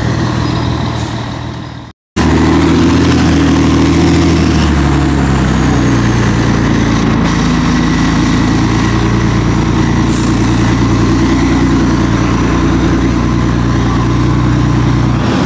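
Old Scania truck's diesel engine running close by. The sound cuts out briefly about two seconds in; the engine note then wavers for a few seconds before settling into a steady idle.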